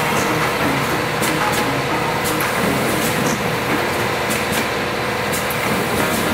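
Steady mechanical noise of an automatic woven-bag cutting and sewing machine running, with a faint steady hum and scattered light clicks.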